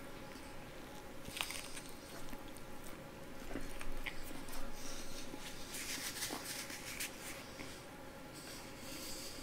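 A person chewing a mouthful of fried chicken close to the microphone, with clusters of short crunchy clicks, the busiest about six to seven seconds in.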